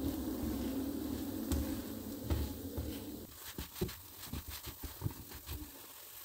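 A paratha frying in a flat pan: a steady hiss for about three seconds, then it drops off and a quick run of light taps and clicks follows as the spatula presses and turns the bread against the pan.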